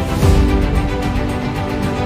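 Background music with held chords and a beat. A strong low hit comes with a brief rush of hiss about a quarter second in.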